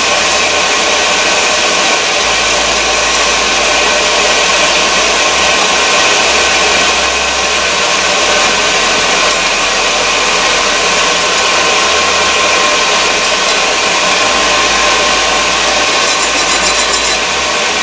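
Forge running with a steady, even rush of forced air and fire while steel heats in it.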